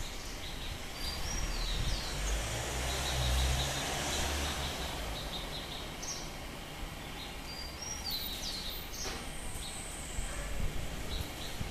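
Small songbirds chirping: short high notes and quick trilled runs of repeated notes, over steady outdoor background noise. A low rumble swells and fades a couple of seconds in.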